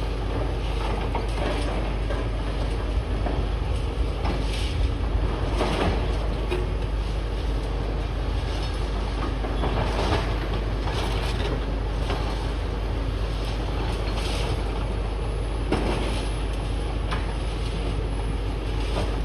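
Excavators working on a demolition site, clearing rubble: a steady machine rumble with irregular clanks and clatter of bucket and debris.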